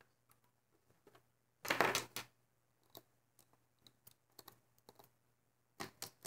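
Small clicks and taps of a plastic loom and rubber bands being handled, with a louder half-second clatter about two seconds in and a few more clicks near the end.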